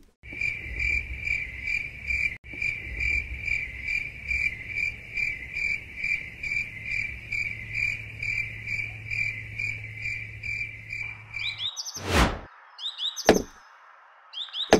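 Cricket chirping in a steady pulse of about two and a half chirps a second, over a low hum. Near the end it stops, followed by a short whoosh and a few quick rising bird-like chirps.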